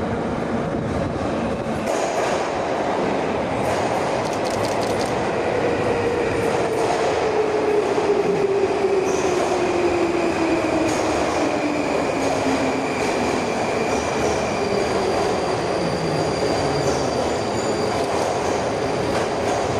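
Metro transfer train, subway cars towing a freight wagon and a withdrawn Em-501 car, running through an underground station: a continuous rumble of wheels on rail with a clatter of clicks over the joints, a motor whine that falls steadily in pitch, and thin high wheel squeal.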